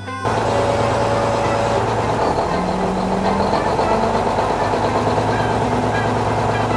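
A heavy vehicle's engine running steadily at an even low pitch, cutting in abruptly after a momentary gap.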